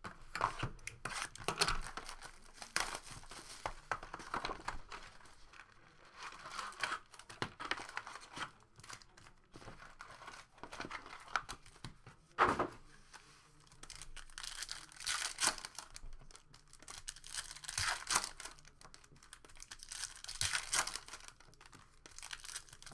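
Foil trading-card packs (2018-19 Donruss Optic basketball) being handled, torn open and crinkled by hand, in irregular bursts of tearing and rustling. One sharp knock about halfway through is the loudest sound.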